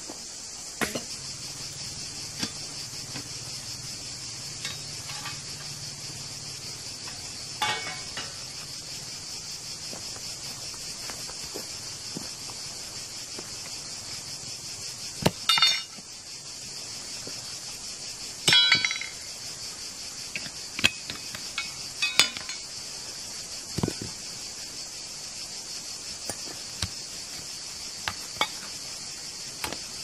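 Steady high-pitched chorus of insects, with occasional sharp clinks and knocks, the loudest about halfway through and again some three seconds later.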